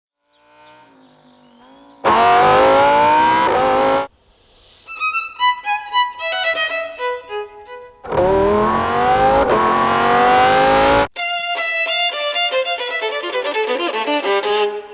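Solo violin passages alternating with a Lamborghini Huracán EVO Spyder's V10 accelerating hard. The engine comes in twice, about two seconds in and again about eight seconds in; each time its pitch climbs for two to three seconds, dips once partway as it shifts up, and cuts off abruptly. Between the engine runs, the violin plays quick runs of separate notes.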